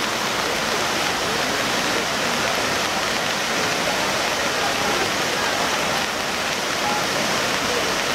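White-water river rapids rushing over rocks, a steady, even noise of fast-flowing water.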